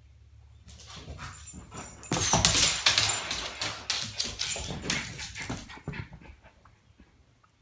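Excited pet dogs, a German Shorthaired Pointer and a Bichon Frise, whining and moving about as they greet their returning owner, with loud rustling close to the microphone from about two seconds in to about six seconds in.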